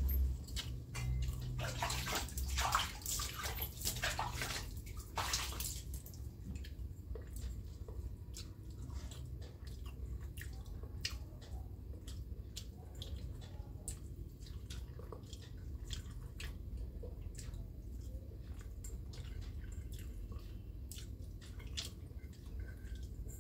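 Eating from a steel bowl with the fingers: small scattered clicks and soft wet sounds of food being scooped, with a few louder rustles in the first few seconds, over a steady low hum.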